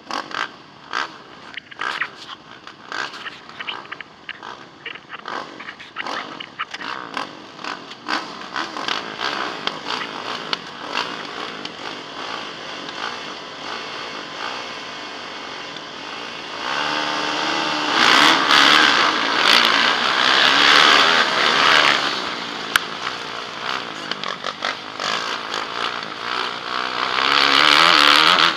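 Motocross motorcycle engines revving in short uneven bursts at the start line, then the rider's own bike at full throttle from a little over halfway through, pulling hard through the gears with a second loud surge near the end.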